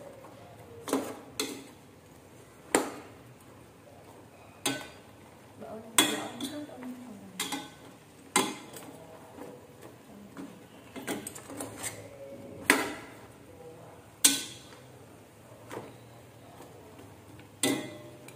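A metal spoon clinking and scraping against an aluminium pot as pieces of braised pork are turned in the sauce: about ten sharp knocks at uneven intervals.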